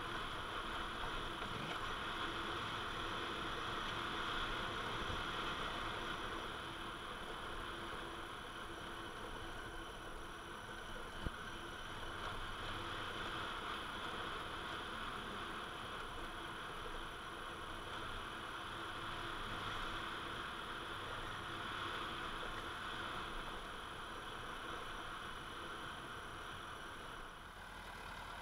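Honda Africa Twin motorcycle riding along a gravel track: a steady engine note under a constant rush of wind and road noise at the camera. There is one sharp knock about eleven seconds in, and the sound eases slightly near the end.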